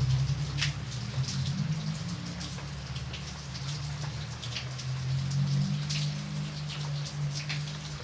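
Rain falling, with separate raindrops striking a surface as irregular sharp taps, over a low steady hum underneath.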